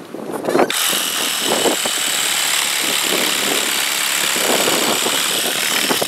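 A cordless power tool's motor starts under a second in and runs steadily at a high whine, with rough irregular rasping underneath, then cuts off at the end.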